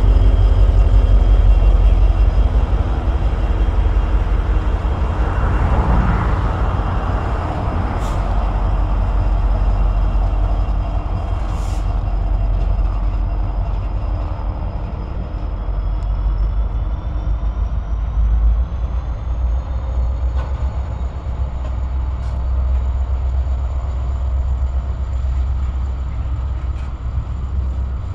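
A train rolling past: a steady, loud low rumble of railroad cars on the track. A faint high-pitched whine rises in pitch about two-thirds of the way through.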